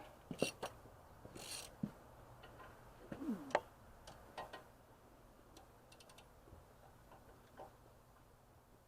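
Faint, scattered metallic clicks and knocks of hand tools and parts being handled, with a brief falling squeak a little past three seconds in.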